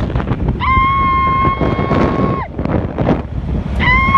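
Wind buffeting the microphone over a constant low rumble of movement, broken by a long, high-pitched held call lasting about two seconds. The call slides up at its start and drops away at its end, and a second one begins near the end.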